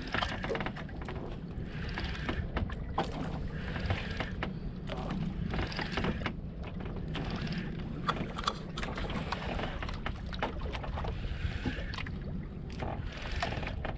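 Motor of a small outrigger boat running steadily under wind and water noise, with many irregular clicks and knocks as a hooked fish is fought on rod and reel.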